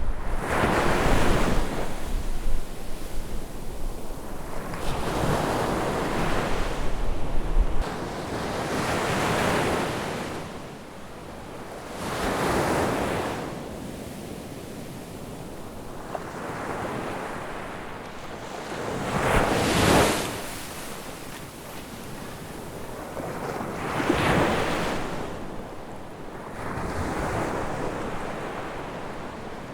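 Ocean waves breaking on a beach, a fresh wave surging up and washing back about every three to four seconds. Wind rumbles on the microphone through the first eight seconds or so.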